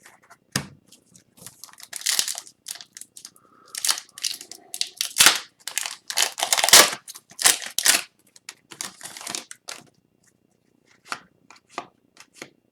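Foil wrapper of a trading-card pack being torn open and crinkled, with dense rustling for several seconds. Near the end come a few light clicks of cards being handled.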